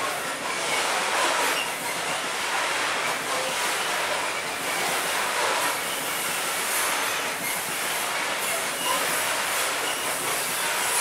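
Freight train of tank wagons rolling past on a curved track: a steady rumble and rattle of steel wheels on rails, with brief faint wheel squeal from the curve.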